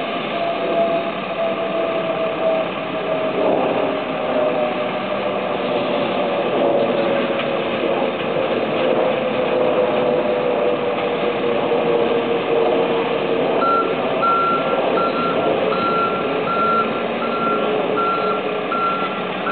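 Diesel construction machinery running steadily, with a whine that slowly falls in pitch. A reversing alarm starts beeping about two-thirds of the way in, about two beeps a second.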